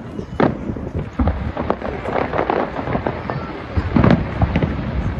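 Fireworks going off: a string of bangs and crackles at uneven intervals, with a louder cluster of bangs about four seconds in.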